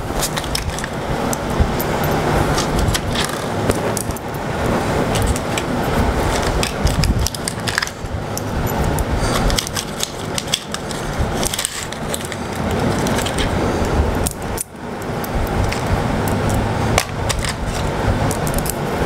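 Small metal bolts and washers clinking and rattling as they are picked out and handled, with sharp clicks scattered throughout over a steady background noise.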